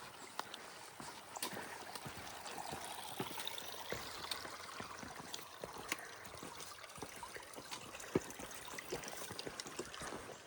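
Running water trickling steadily, like a small stream, with scattered light clicks over it.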